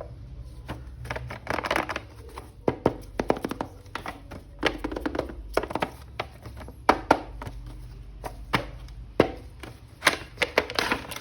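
Hands handling a plastic action figure and its packaging: irregular clicks, taps and knocks, with short stretches of rustling in between.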